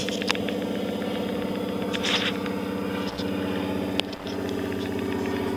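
A motor running with a steady low hum. A short hiss comes about two seconds in, with a few sharp clicks.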